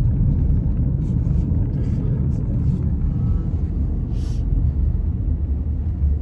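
Steady low rumble of road and engine noise inside a moving car's cabin, with a brief click about four seconds in.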